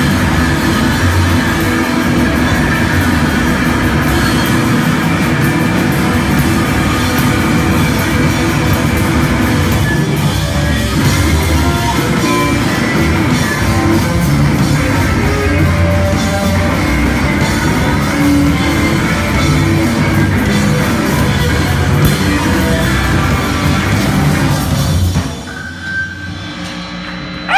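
Live rock band with electric bass and drums playing a loud, dense wall of noisy rock. The full sound cuts out sharply about two seconds before the end, leaving a quieter ringing remnant.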